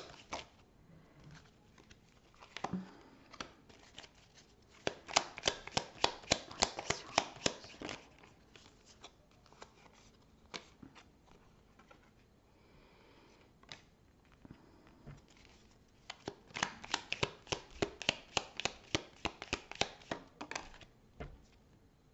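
A deck of oracle cards being shuffled by hand: two spells of quick card slaps, about five a second, with quieter handling of the cards between.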